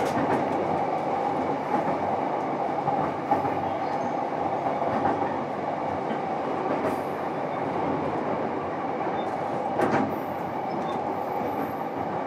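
JR East E233 series electric commuter train running at speed, heard from inside the car: a steady rumble of wheels on rail with a constant hum, broken by a few short clicks.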